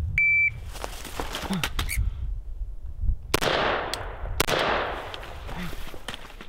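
A shot timer's short electronic beep just after the start, then AR-15 rifle shots spread over the next few seconds. The loudest come about three and four and a half seconds in, each trailing off in echo, over low rustling of gear as the shooter moves.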